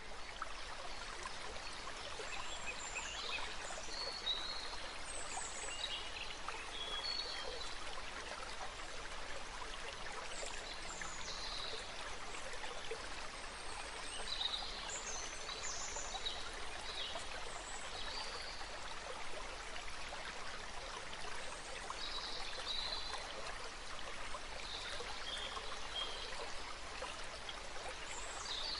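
Steady rush of flowing water, like a stream, with short high chirps scattered through it.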